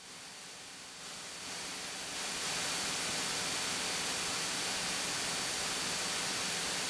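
Steady cockpit noise of a Beechcraft A36 Bonanza in cruise: an even hiss with a faint high whine. It swells over the first couple of seconds and then holds level.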